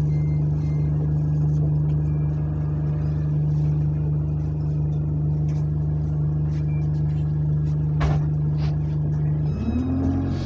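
Single-deck bus SE82 heard from inside the passenger cabin while under way: its diesel engine runs with a steady drone, and there is a single sharp knock about eight seconds in. Near the end the steady note drops out and a wavering whine rises and falls as the engine changes speed.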